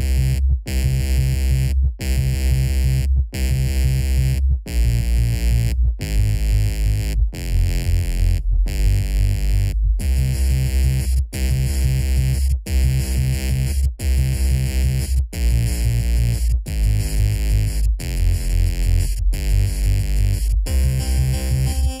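Electronic background music with synthesizer and a heavy bass line, pulsing in a steady beat with brief breaks about every second and a half.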